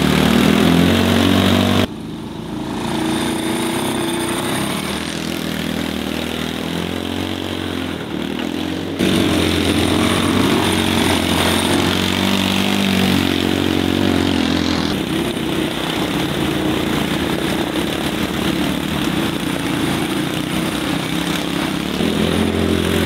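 Small engines of ride-on vehicles running steadily while under way, a green mini garden tractor among them. The engine sound changes abruptly about 2, 9 and 15 seconds in.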